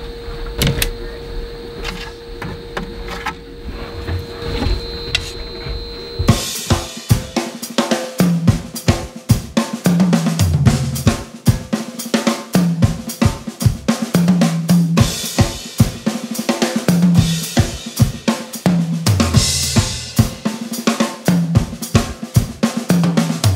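A steady hum with scattered clicks for about six seconds, then a drum kit starts playing a steady beat on snare, kick drum, hi-hat and cymbals, with low bass notes under it.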